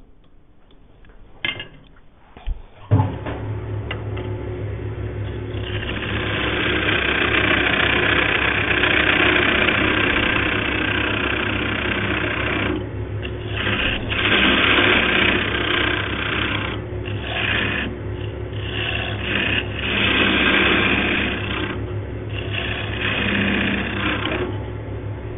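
A few clicks, then a wood lathe motor starts about three seconds in and runs with a steady hum. From about six seconds a hand-held turning tool cuts into the spinning hardwood blank with a scraping hiss, in several passes with short breaks, widening the recess for the chuck jaws.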